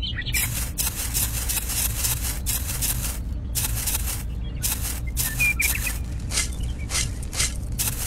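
Small shovel scraping and digging into sand: a quick, irregular run of short gritty scrapes over a steady low hum.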